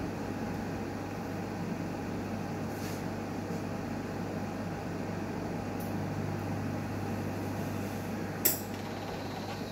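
Newmed Kronos S benchtop steam autoclave running a sterilisation cycle with a steady mechanical hum. A sharp click about eight and a half seconds in is the loudest sound.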